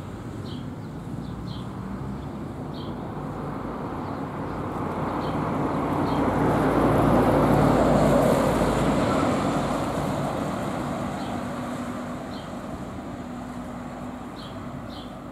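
A heavy lorry pulling a trailer drives past on the road. Its engine and tyre noise build slowly to their loudest about eight seconds in, then fade away.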